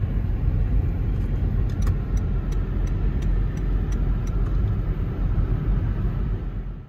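Road and engine noise heard inside a moving car's cabin: a steady low rumble. A faint regular ticking, about three ticks a second, runs for a few seconds in the middle.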